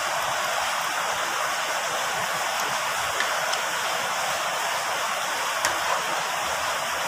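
Steady hiss of rain falling, with a few faint clicks of a spoon on a plate.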